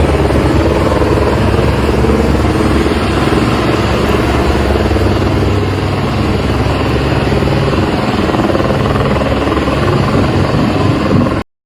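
Loud, steady, engine-like rumble with a fast low flutter, cutting off abruptly near the end.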